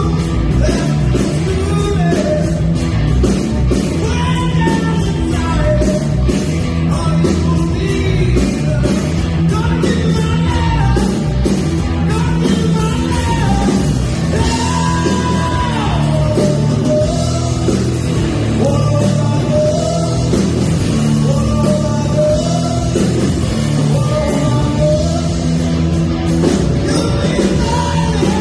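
Rock song with a lead singer over drums, bass and guitar, loud and steady throughout.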